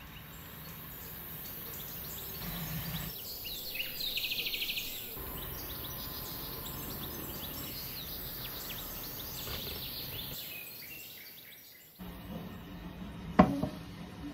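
Small birds chirping over steady background noise, with a quick trill about four seconds in. About a second before the end comes a single sharp clank, the loudest sound.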